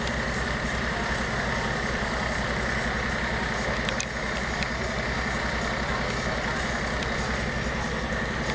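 A heavy engine idling steadily, a low, even throb, with a few faint clicks over it.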